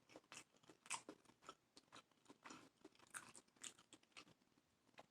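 Faint, close-up chewing of a sauce-dipped boiled egg: soft, irregular wet mouth clicks and smacks, several a second.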